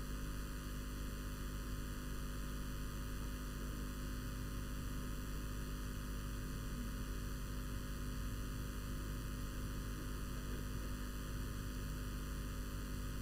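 Steady electrical mains hum with a hiss of line noise, unchanging throughout.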